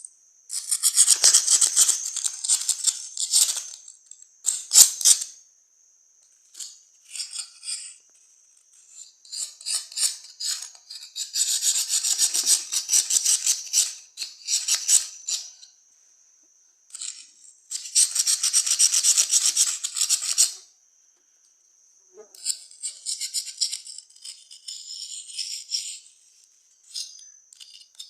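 Cuttlebone being scraped down into powder in quick, rasping strokes, in spells of one to three seconds with short pauses between them.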